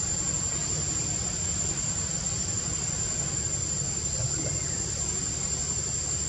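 Steady high-pitched insect drone, one unbroken tone, over a constant low rumble.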